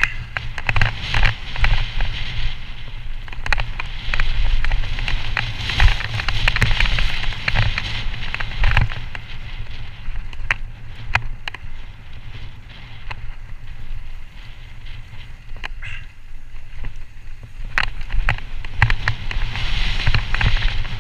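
Trek Slash 29er mountain bike descending a loose dirt trail at speed: tyres hissing and crunching over dirt and gravel, with many sharp clicks and knocks as the bike rattles over bumps and a steady low rumble of wind on the microphone.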